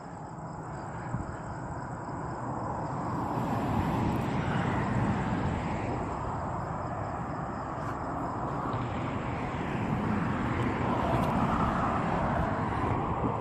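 Outdoor background rumble and hiss with no clear source. It swells slowly for the first few seconds, eases off, then builds again near the end, with a few faint ticks along the way.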